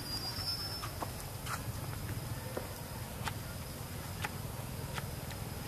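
Forest ambience: a thin, steady high insect tone over a low rumble, with sharp clicks and snaps coming irregularly about eight times.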